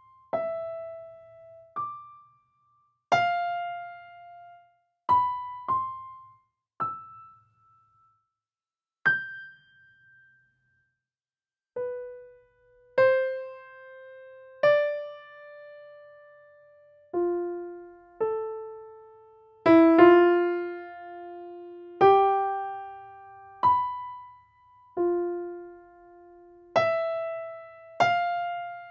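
Slow, sparse solo piano music: single notes struck one at a time with gaps between them, each ringing out and fading, with a few quicker notes about two-thirds of the way in.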